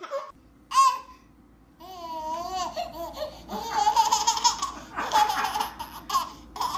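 A baby laughing in a string of short bursts, after a high, wavering vocal sound.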